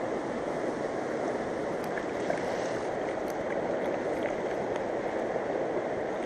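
Steady rushing of a fast mountain river running over stones.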